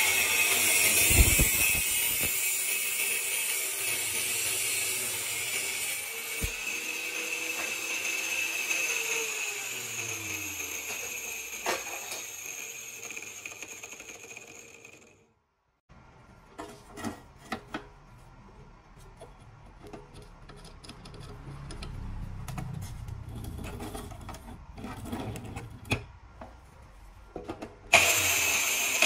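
Angle grinder with a cut-off disc running and cutting steel, a steady high-pitched whine that fades out over the first quarter minute. After a break, scattered clicks and knocks of metal being handled, then the grinder starts again at full volume near the end.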